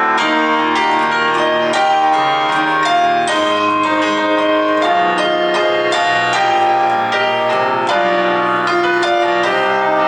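Piano music: a flowing melody of struck notes over chords, with no singing.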